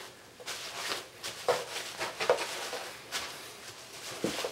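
Cardboard mailers rustling and scraping as they are slid and pushed into a cardboard shipping box, with irregular short knocks and scuffs.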